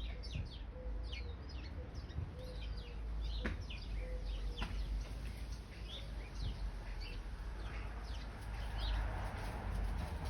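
A flock of sparrows chirping and chattering, many short quick chirps overlapping throughout, over a steady low rumble of wind on the microphone.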